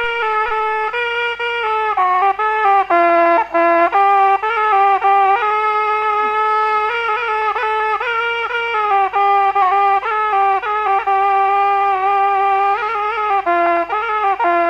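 A single reed or wind instrument playing a continuous, ornamented melody, one note at a time and almost without pauses.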